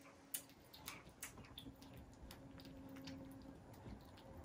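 Kittens crunching dry kibble from a plate: faint, irregular crunches and clicks, the sharpest about a third of a second in.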